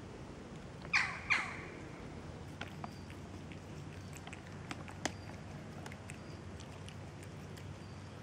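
Two short, high animal chirps about a second in, each falling in pitch, a third of a second apart. A few faint clicks follow.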